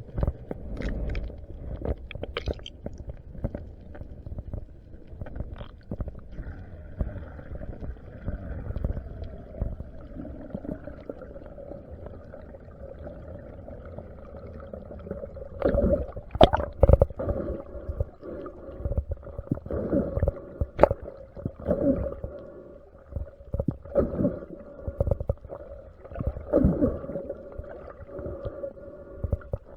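Underwater sound picked up by the camera during a spearfishing dive: low rumbling and gurgling water with scattered knocks. A steady hum comes in about six seconds in and carries on to the end.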